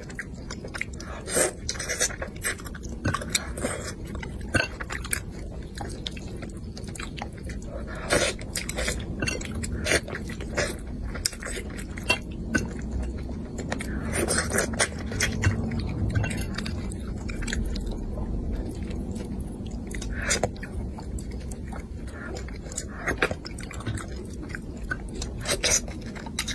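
A person chewing and biting mouthfuls of spicy braised fish, close to a clip-on microphone, with irregular sharp clicks coming in clusters throughout.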